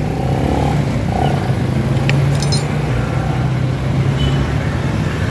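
Steady low drone of a motor vehicle engine running, with a couple of light metallic clinks about two seconds in.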